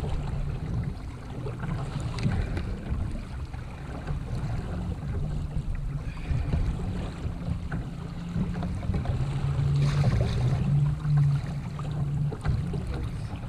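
Wind buffeting the microphone on a kayak at sea: a low rumble that swells about ten seconds in, with water sounds and a few light knocks.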